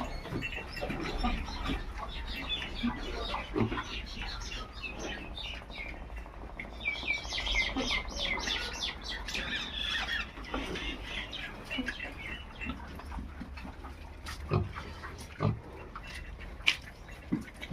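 Desi pigs grunting and squealing, mixed with short chirping calls, busiest from about seven to ten seconds in.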